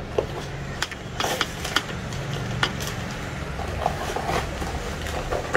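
Cardboard box and paper leaflet being handled and rummaged through, making scattered crinkles and light clicks over a steady low hum.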